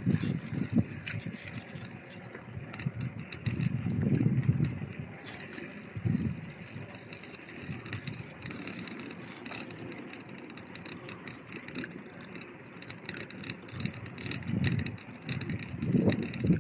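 A bicycle being ridden, with steady tyre noise and many small irregular clicks and rattles from the bike. Louder low rumbling swells come about four seconds in and again near the end.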